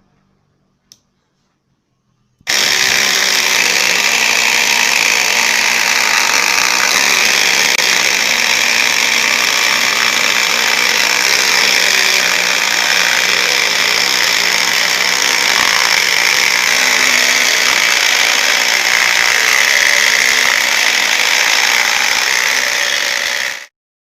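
Homemade motor-driven power saw running steadily at full speed for about twenty seconds. It starts abruptly about two and a half seconds in and cuts off suddenly near the end.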